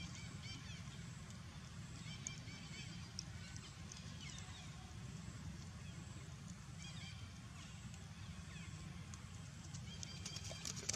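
Outdoor ambience: a steady low rumble with many short, high-pitched chirping calls scattered throughout, and a quick run of sharp clicks about ten seconds in.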